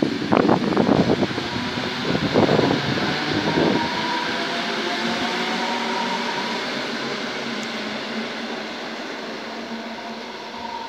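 NS Mat '64 electric multiple unit passing and pulling away: the wheels clatter over rail joints for the first few seconds, then a steady running hum with a faint whine, fading as the train draws off.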